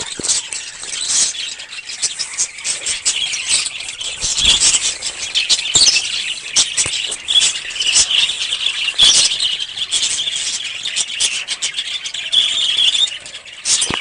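Many small birds chirping and twittering at once: a dense, continuous chorus of short, high calls.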